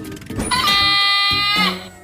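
Cartoon soundtrack music. A loud high note swoops up about half a second in, is held for about a second, then bends down and stops.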